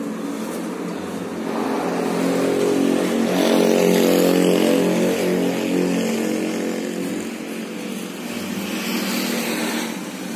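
A large vehicle's engine running close by, rising and falling in pitch. It grows louder about two seconds in, eases off, and swells again near the end, with a hiss over it.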